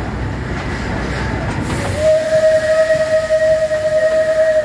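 Train running past with a low rumble, then, about two seconds in, the steam whistle of the SL-25 Shay steam locomotive sounds one long, steady blast that lasts to the end.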